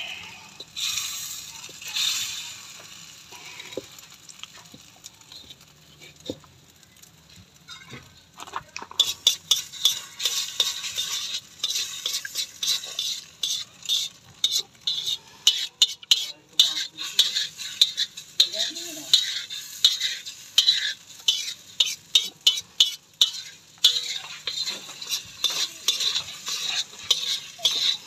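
Scrambled eggs sizzling in a steel wok while a metal ladle stirs them, scraping and clinking against the pan. The stirring is sparse at first, then turns rapid and continuous from about nine seconds in.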